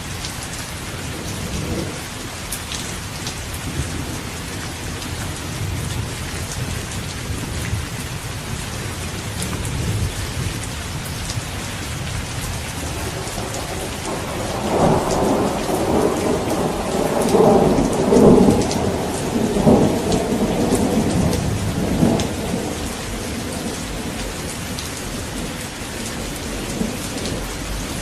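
Steady rain with thunder. Low distant rumbles in the first half, then a louder peal of thunder rolls in surges from about halfway through and dies away a few seconds before the end.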